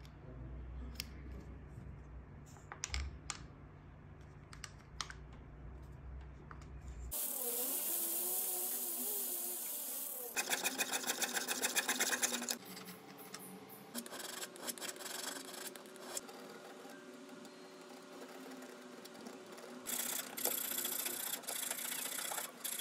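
Jeweller's bench work on a metal pendant. In the first few seconds there are light metal clicks, as a bit is fitted into a flex-shaft handpiece. About halfway there is a fast, even run of jeweller's saw strokes cutting the pendant's edge, and near the end the rasp of a hand file on the metal edge.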